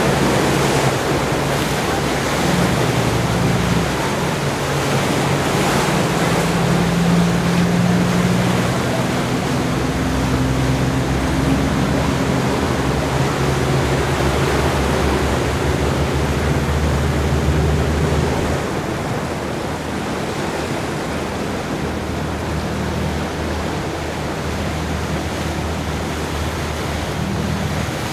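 Ocean surf washing ashore, with wind buffeting the microphone and a low steady hum underneath; the sound eases off somewhat about two-thirds of the way through.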